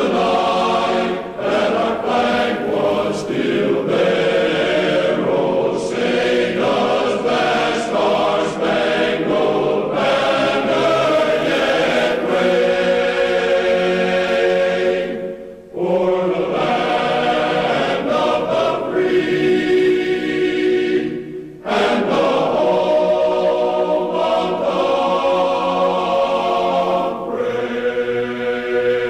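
A choir singing sustained, chant-like music, with two short breaks, about 16 and 22 seconds in.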